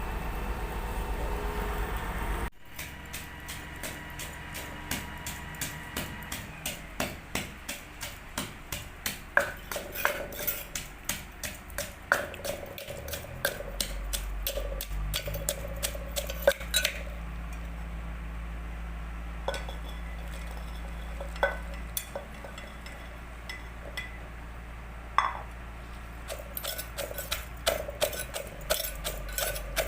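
A pestle pounding in a mortar with regular sharp knocks, about two to three a second, starting a couple of seconds in after a steady rumble cuts off.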